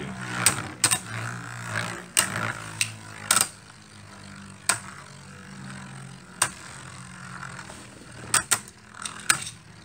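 Two Beyblade Burst spinning tops whirring in a plastic stadium, with sharp clacks every second or so as they strike each other, fewer in the middle and several close together near the end.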